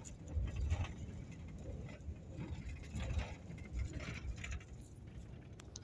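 Cabin noise of a moving van: a steady low road and engine rumble, with short rattles and knocks several times.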